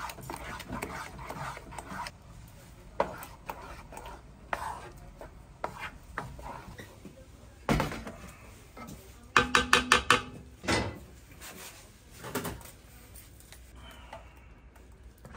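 Metal cookware clinking and clattering while bungeoppang (fish-shaped bread) is being made: scattered knocks and clicks, with a quick run of about six ringing metallic taps a little past the middle.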